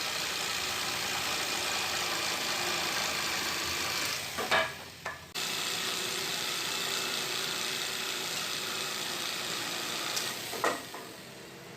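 Bosch GTS 10J table saw running with a steady hiss-like whir. There is a brief louder surge about four and a half seconds in, then a sudden cut-off and restart about a second later. A second surge comes near the end before the sound drops away.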